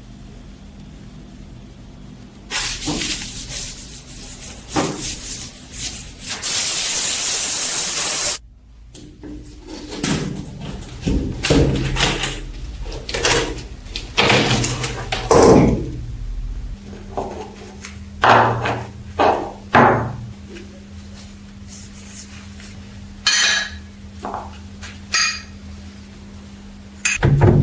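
Several short bursts of hissing spray, then a steady hiss for about two seconds that cuts off suddenly, followed by a run of separate knocks and clunks, like metal parts being handled and set down on a workbench.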